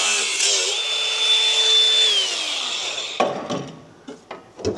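Power tool cutting through an exhaust pipe, then running free with a steady whine that falls in pitch as it winds down. Two sharp clunks follow near the end.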